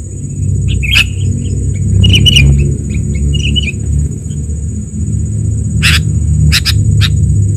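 Sooty-headed bulbul (kutilang) calls from a bird-luring recording: short bubbly chirping phrases, then a few sharp brief notes near the end. A steady high-pitched whine and a low rumble run underneath.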